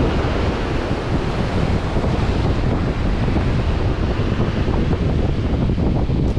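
Surf breaking and washing up a sandy beach, with wind buffeting the microphone in a steady rumble.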